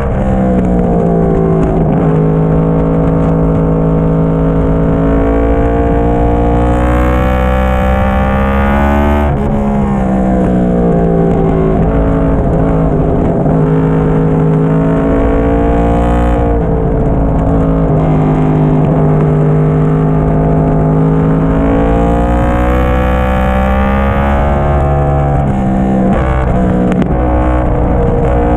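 Yamaha YZF-R1 (2010) crossplane-crank inline-four running through a Yoshimura slip-on muffler, ridden hard through bends. Its pitch drops as the throttle is rolled off and climbs again under acceleration, several times over.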